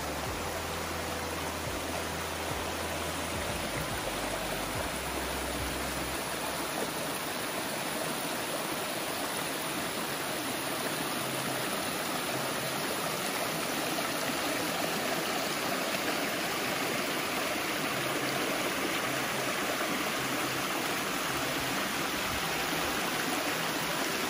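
Rocky woodland creek rushing over small cascades and waterfalls: a steady, even rush of water.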